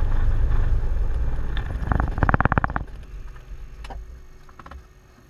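Cessna 172 engine shutting down. It runs steadily, then about two seconds in it stutters through a quick run of pulses as the propeller stops, and the sound falls away to a quiet cabin with a couple of faint clicks.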